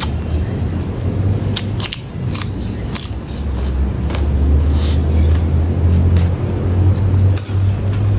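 Close-up eating sounds: sharp crunches and clicks from biting and chewing raw cucumber and spicy salad, with breath blown out through pursed lips against the chili heat. A steady low hum runs underneath and grows stronger about halfway through.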